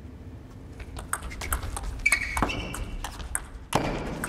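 Table tennis rally: the celluloid ball is struck back and forth, a quick run of sharp ticks of ball on bats and table starting about a second in, with a short high squeak about two seconds in and a harder knock near the end.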